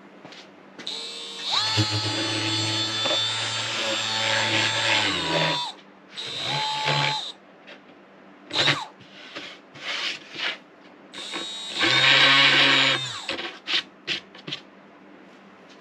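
Milwaukee orbital detail sander with 80-grit paper, sanding tear-out off plywood edges. It runs in bursts: a run of about five seconds that winds down in pitch as it stops, a brief burst, then another run of over a second. A few light knocks come between the runs.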